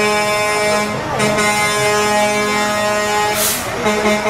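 A vehicle air horn held in a long steady blast, briefly dropping about a second in and again near the end, with a short hiss about three and a half seconds in.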